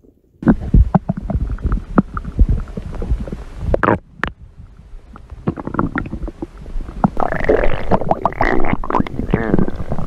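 Stomach growling and gurgling: a run of low rumbles and wet pops, with louder, higher-pitched squealing gurgles over the last few seconds.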